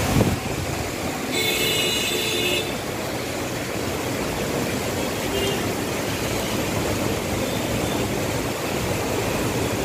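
Heavy rain pouring onto a flooded city street, a steady loud hiss, with road traffic moving through it. A brief high-pitched tone sounds about a second and a half in.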